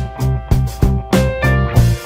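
Background music: a guitar-led track with a steady, quick beat and a strong bass.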